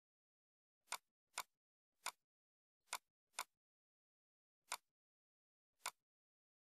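Computer mouse clicks: seven short single clicks at uneven intervals, two of them close together about a second in and two more near three seconds.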